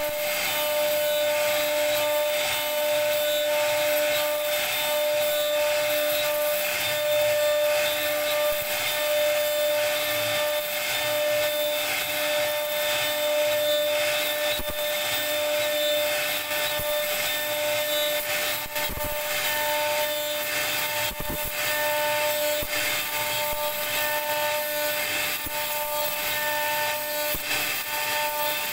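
CNC router spindle cutting wood with a straight bit: a steady high whine over the rough hiss of the bit chipping through the wood, with a few faint knocks in the middle.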